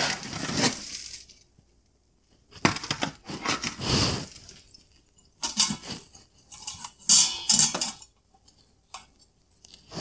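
Raw rack of ribs being handled on a metal baking sheet and set into an Instant Pot's stainless steel inner pot, with clinks and scrapes of metal. The noise comes in about four short spells with quiet gaps between them.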